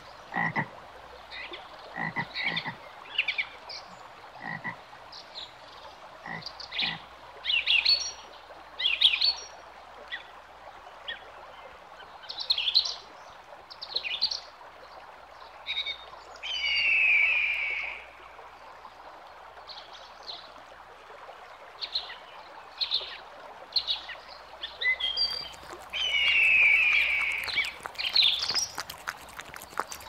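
A chorus of animal calls: many short calls in quick succession, with two longer, louder calls, one midway and one near the end.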